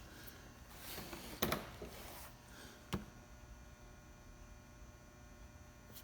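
Two soft clicks about a second and a half apart as the start button of a 2011 Can-Am Renegade ATV is pressed, with no starter or engine sound after them: the machine does not crank, a no-start fault that the owner puts down to a broken wire or bad connection.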